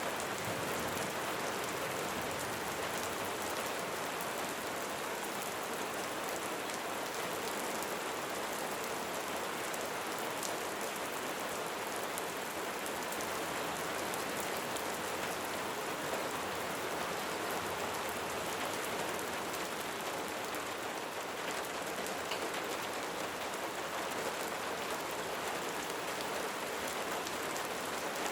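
Light rain falling steadily, an even hiss of drops pattering on surfaces with fine individual drop ticks.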